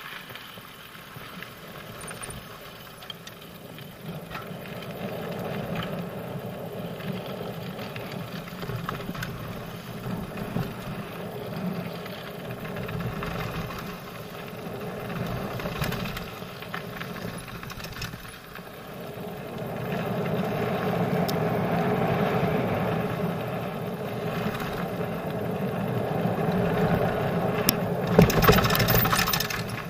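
Mountain bike rolling fast down a loose gravel trail: tyre noise over gravel and wind on the bike-mounted microphone, with the bike rattling over bumps. It grows louder in the second half, with a few sharp knocks and a quick run of them near the end.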